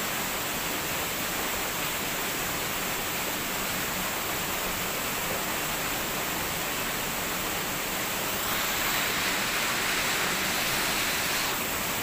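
A high, narrow waterfall's steady rush of falling water, which swells a little louder for a few seconds near the end.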